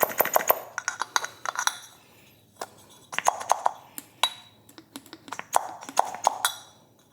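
Irregular sharp metallic clicks and clinks of a billet aluminium bypass valve and its small hardware being handled and fitted by hand, with a short quiet pause about two seconds in.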